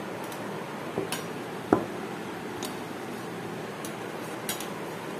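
Metal spoon and glass plate clinking as a slice of food is served onto the glass dish: a few light taps and one louder ringing clink a little under two seconds in, over a steady background hiss.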